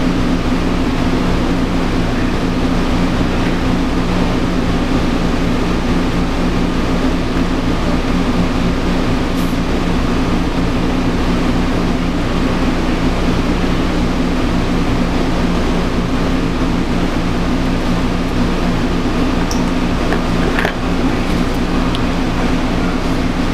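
Steady machine hum with an even rushing noise, like a running fan, unchanging throughout.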